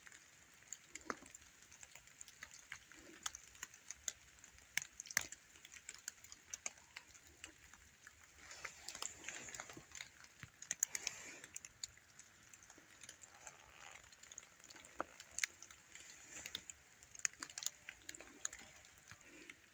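Footsteps on the forest floor: faint, irregular crunching clicks and rustles.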